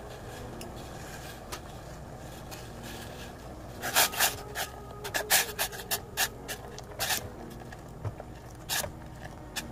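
Metal ladle scraping and clinking against the side of a stainless steel pot while stirring boiling chilli sauce: a run of sharp scrapes and knocks starting about four seconds in, over a steady low background.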